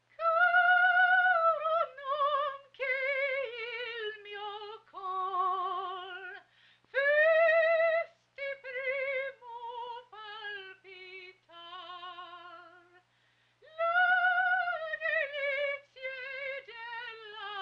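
A woman's voice singing unaccompanied in a high operatic style with strong vibrato. The melody comes in three phrases, each opening on a long held note and stepping down through shorter notes, with short breaks about six and thirteen seconds in.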